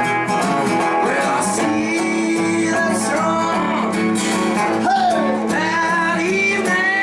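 Acoustic guitar strummed with an electric guitar playing along, a small band playing a song live.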